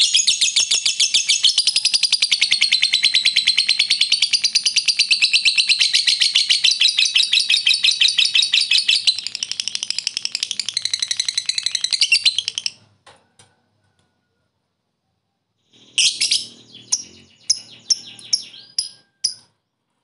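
Lovebird giving its 'ngekek': one long, unbroken run of rapid, high, chattering chirps lasting about twelve seconds, then stopping. After a few seconds' pause come a few short, separate chirps.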